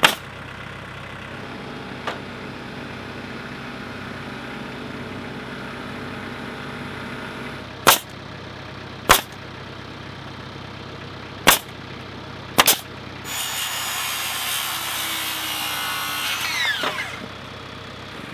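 Pneumatic siding nailer firing nails into frozen green one-by boards: five sharp single shots a second or more apart, over a steady hum. Then a power saw cuts for about three and a half seconds and winds down.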